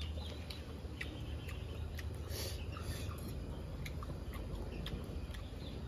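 A person chewing a mouthful of food, with scattered small clicks over a steady low hum.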